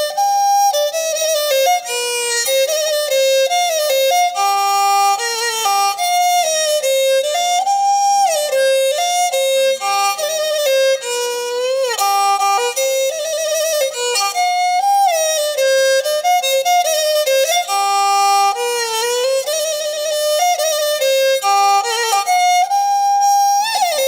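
Background music: a solo bowed string instrument plays a flowing melody with frequent slides and vibrato.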